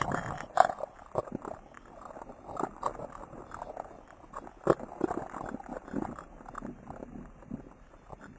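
Irregular crackling, clicking and soft crunching noises, scattered unevenly with sharper pops about half a second in and near the middle. This is the track the video presents as the sound of the ciliate Loxophyllum meleagris under the microscope.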